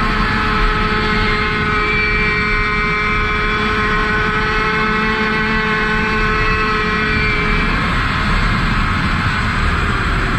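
Tomos 50 cc two-stroke racing moped engine held at high revs, heard onboard over rushing wind; a steady high-pitched engine note that drops about eight seconds in as the moped slows.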